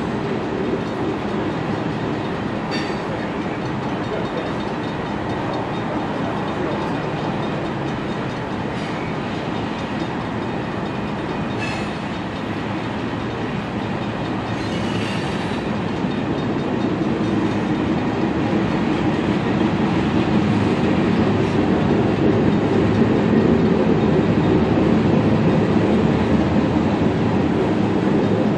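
Freight cars of a San Joaquin Valley Railroad train, tank cars and then covered hoppers, rolling past with a steady rumble of wheels on rail. There are a few brief high squeals about three, twelve and fifteen seconds in, and the rumble grows louder in the second half.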